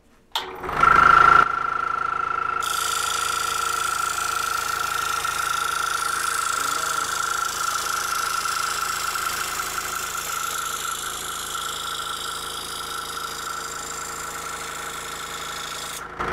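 Scroll saw fitted with a spiral blade, switched on about half a second in and running steadily with a high whine and a hiss. It is cutting a curved line through a thin white board.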